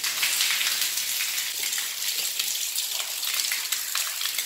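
Water spraying from a hose and splashing onto tiled walls and floor, a steady spray with fine spatter throughout.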